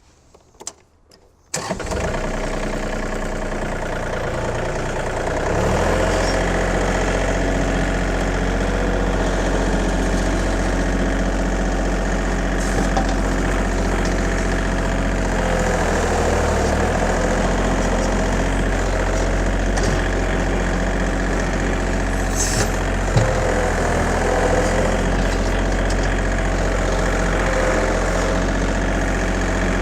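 John Deere 2032R compact tractor's three-cylinder diesel engine running steadily while it works the loader to fill a trench. It comes in suddenly after a moment of near silence and gets louder about five seconds in, with a wavering whine over the engine drone. There is one sharp knock late on.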